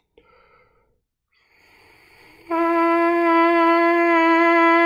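A trumpet mouthpiece buzzed by the lips on its own. Air rushes through it first, then about halfway in it speaks as one steady, evenly pitched buzzed note, held for over two seconds.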